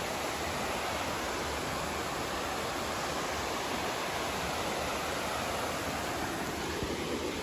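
River water rushing steadily over rocks, an even, continuous roar of flowing water.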